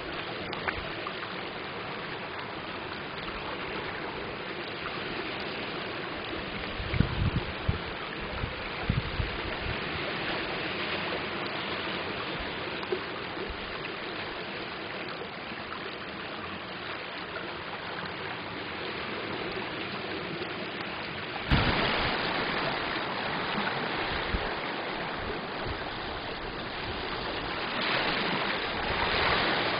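Lake water washing over a stony shore: shallow water rippling over pebbles and small waves lapping, a steady wash. About two-thirds of the way through it suddenly gets louder, as waves lap close by on sand; a few low thumps of wind on the microphone come about a quarter of the way in.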